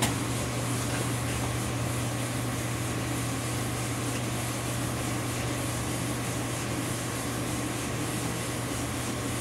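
Samsung clothes dryer starting up and running steadily: drum motor and blower fan with a low, even hum. It is the dryer's first run after its broken heating element was replaced, and the heat works.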